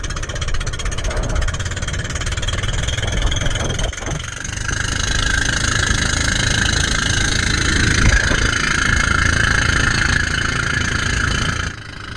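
Pumpboat (motorised outrigger boat) engine running steadily; a high whine in its sound grows stronger about five seconds in, and the sound stops abruptly near the end.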